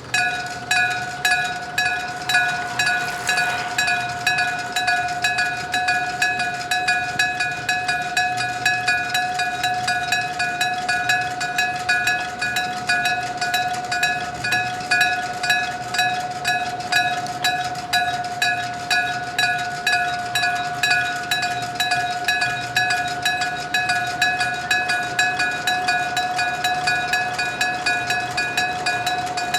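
Old-style electric-bell (denshō) level-crossing warning bell starts suddenly and rings on steadily, a rapid, even 'chin-chin' of hammer strikes on a metal bell a few times a second, with a lingering ring between strikes: the crossing signalling that a train is coming.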